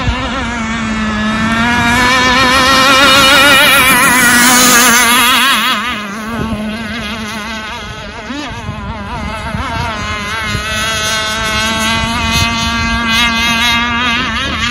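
Enforcer Stingray RC hydroplane running at speed across open water, its motor note wobbling as the hull skips. It swells loudest a few seconds in as it passes closest, drops back around six seconds, then holds steady as it runs off across the bay.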